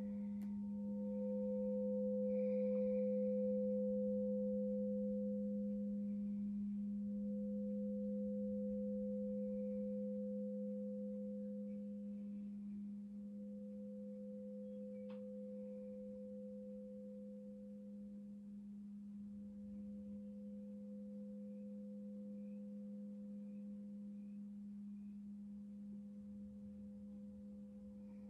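Crystal singing bowl ringing: a steady low hum with a higher overtone that swells and dips every few seconds, slowly dying away.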